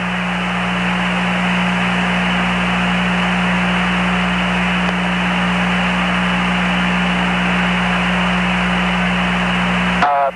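Radio static on the Apollo 11 air-to-ground voice link: a steady, band-limited hiss with a low hum under it that cuts off suddenly near the end.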